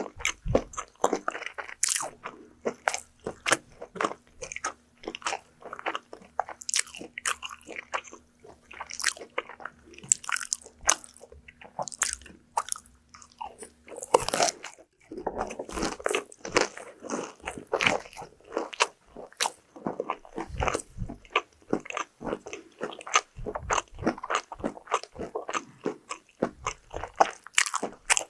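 Crunching and chewing of crispy fried food, picked up close by an ASMR microphone: a dense run of crisp bites and wet chewing clicks.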